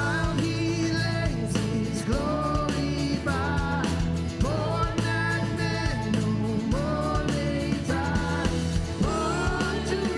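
Worship band music with a sung melody over bass and a steady drum beat.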